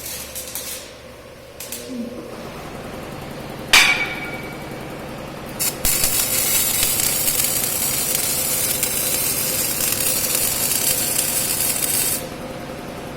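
A metal clank with a brief ring about four seconds in, then a CO2 MIG welding arc sizzling steadily for about six seconds before cutting off sharply.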